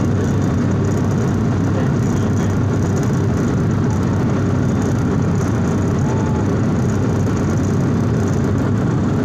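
Steady, low cabin noise of an airliner in flight: the drone of its engines and air rushing past the fuselage, heard from inside the cabin.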